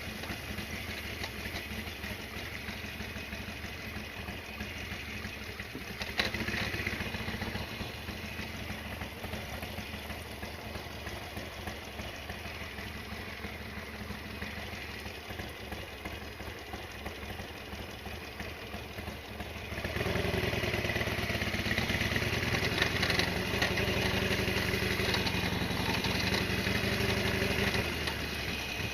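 Harley-Davidson Sportster XL1200R's air-cooled V-twin engine running steadily; about twenty seconds in it grows louder for some eight seconds, then eases back.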